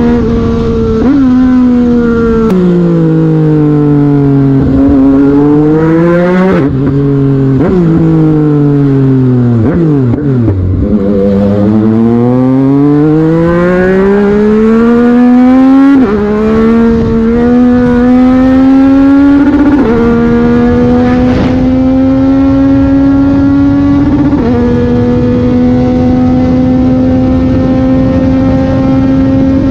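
Yamaha MT-09's 890 cc inline-three engine under way. Its pitch falls as the bike slows, climbs again under acceleration with a sudden drop at each upshift, then holds nearly steady at cruise near the end.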